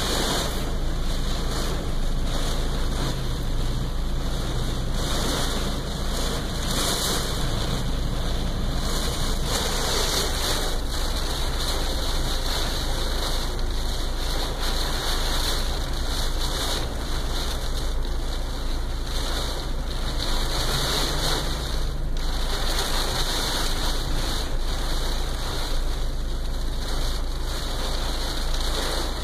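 Heavy rain falling on a car's roof and windows, heard from inside the cabin, a steady rushing that swells and eases every few seconds in gusts of wind.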